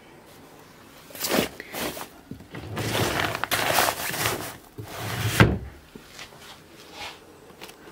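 A chest-of-drawers drawer being handled and slid shut: rustling and sliding over a few seconds, then a thud as it closes about five and a half seconds in.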